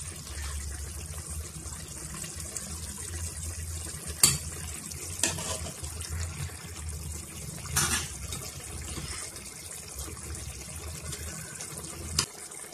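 Pot of bitter leaf and egusi soup simmering and bubbling over a steady low rumble, with a few short sharp clicks spread through. The rumble stops suddenly near the end.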